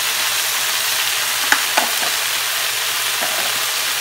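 Chopped onion and crushed garlic sizzling steadily in a little olive oil in a hot nonstick pan, with a few small crackles about halfway through.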